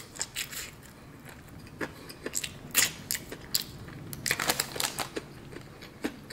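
Crunching and chewing on a piece of crispy battered fried chicken wing: sharp, irregular crackles of the crust breaking in clusters, with a quieter pause about a second in.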